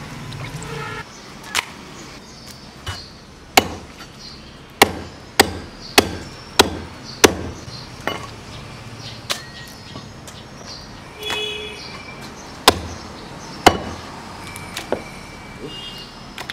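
Cleaver chopping raw goose on a thick round wooden chopping block: a dozen or so sharp whacks at uneven intervals, with a quick run of about six strokes a little over half a second apart a few seconds in, then a few slower strokes later.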